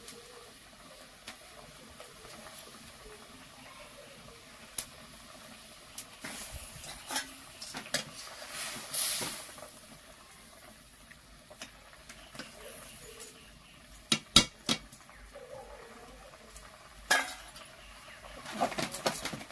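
Steel kitchen utensils clinking: a ladle against a steel kadhai and steel bowls and plates being handled. There are scattered sharp clinks, the loudest two close together about fourteen seconds in and more near the end.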